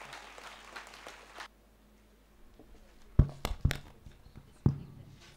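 Crowd applause tailing off and cutting out about a second and a half in, followed by a few loud, sharp knocks and thumps.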